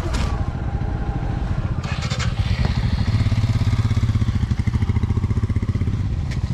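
Hero XPulse 200's single-cylinder engine running at low revs as the motorcycle is ridden slowly down a rough off-road track; the engine pulses grow stronger about three seconds in. A few short clattering knocks come near the start and about two seconds in.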